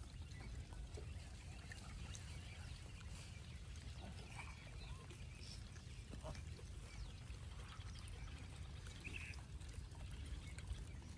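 Faint sounds of a gray langur troop feeding: scattered short squeaky calls and small rustles, over a steady low rumble.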